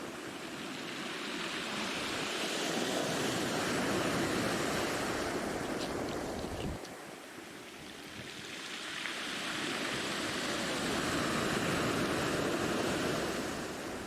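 Ocean surf: waves breaking and washing up on shore, swelling twice, with a lull between.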